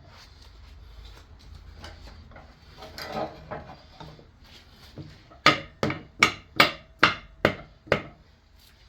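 Hammer tapping on the vise to drive the vise nut loose: seven sharp, evenly spaced strikes, about three a second, starting about halfway through. Before them there is light handling and scraping of the metal parts.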